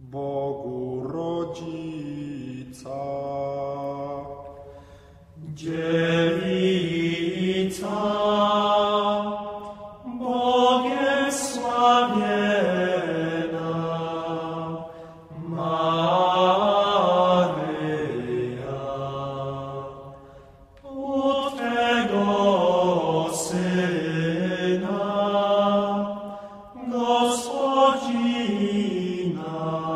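A single man's voice chanting in long, ornamented melodic phrases of about five seconds each, with short pauses between them.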